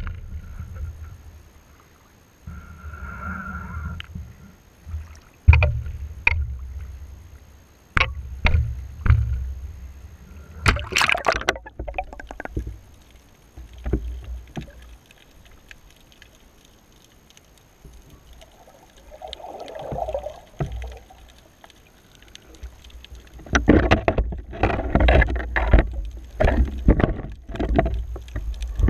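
A TROP Mk-II baited camera rig being lowered into the sea: water sloshing against the camera housing with scattered knocks and a low rumble. A burst of splashing comes about eleven seconds in. Near the end there is a cluster of knocks and scrapes as the rig settles onto the rocky seabed.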